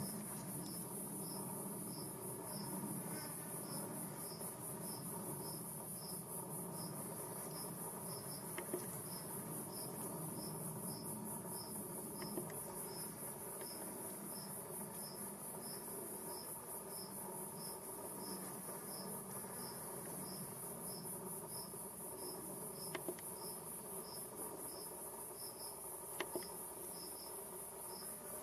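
Wild insects singing: a steady, high, fast-pulsing trill with a second insect's short chirp repeated about twice a second.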